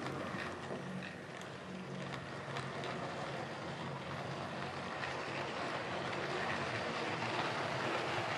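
OO gauge model train running on its track: a steady electric-motor hum with a hiss of wheels on rail and faint, irregular clicks.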